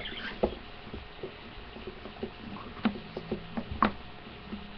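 Plastic Play-Doh syringe extruder being loaded and handled: a few scattered light clicks and knocks of the plastic parts.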